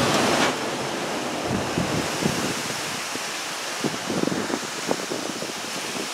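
Strong thunderstorm winds rushing and gusting through an opened window or door, a steady rushing noise that is loudest at the start. Scattered small knocks and rattles sound through it.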